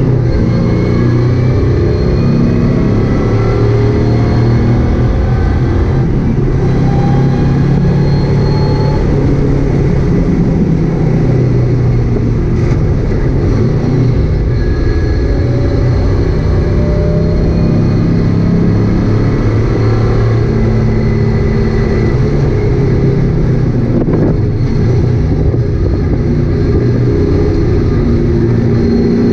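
1965 Chevelle's engine running hard under load, heard from inside the cabin, its pitch rising and falling again and again as the car accelerates and slows.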